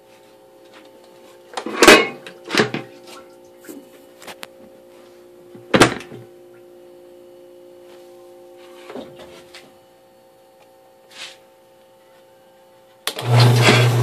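Several separate knocks and clunks as an antique Automatic Electric Washer Co. copper washing machine is handled. About a second before the end, the machine starts with a sudden loud, steady low hum and mechanical clatter.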